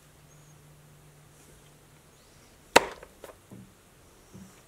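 One sharp knock about three seconds in, then a few lighter knocks and taps, as from handling something on a wooden workbench.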